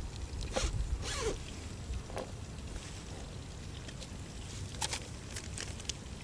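Several short rustling scrapes and soft taps as ground spice powders are tipped by hand into a plastic tub, the clearest about a second in and just before five seconds, over a low steady rumble.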